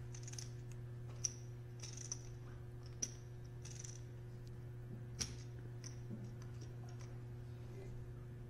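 Poker chips clicking and clacking together as a player handles his chip stacks and cuts out a raise: a scatter of short, sharp clicks at irregular intervals, over a steady low hum.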